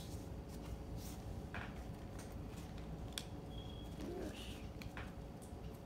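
Faint handling of trading cards: a few soft clicks and light rustles as cards are set down and picked up, over a low steady room hum.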